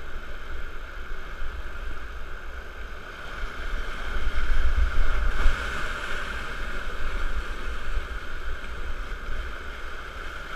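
Rushing whitewater of a steep boulder rapid around a raft, with a low rumble on the microphone. The rush swells louder about four to six seconds in as the raft drops through the falls.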